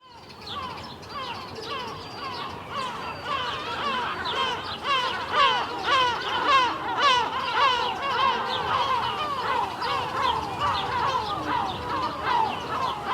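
A flock of gulls calling together, with many short overlapping squawks that keep repeating. It fades in over the first couple of seconds.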